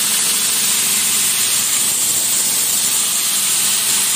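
Belt grinder running steadily off a variable-frequency drive: an even hiss from the abrasive belt over a faint motor hum. It runs smoothly, with little noise but the belt's own.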